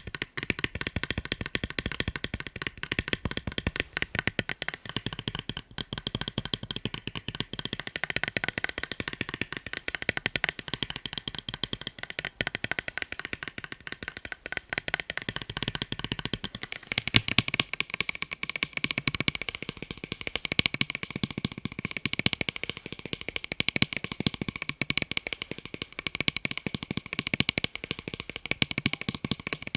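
Fast, continuous tapping on a pair of eyeglasses, a dense stream of quick light clicks with a faint ring to them.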